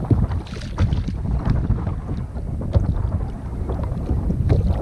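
Wind buffeting the microphone in a churning low rumble, with small waves slapping against the kayak hull in short splashes.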